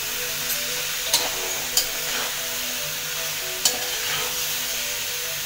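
Metal spatula stirring fried ivy gourd and potato pieces through sizzling masala in a pan, over a steady frying hiss. The spatula hits the pan with sharp clinks, three in the first two seconds and one more later.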